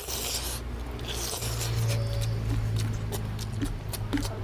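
Close-miked eating of oily mutton fat curry: two wet slurps in the first second and a half as the soft fat is drawn into the mouth, then chewing with many small, sharp lip smacks and mouth clicks over a low steady hum.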